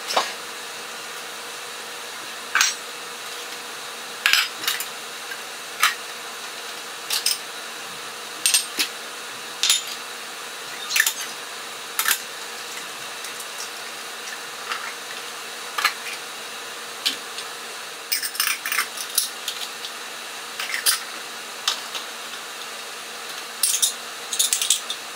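Glass food-storage containers, bowls and kitchenware being handled and set down on a stone countertop: scattered clinks and knocks about every second, in quicker clusters near the end. A faint steady hum runs underneath.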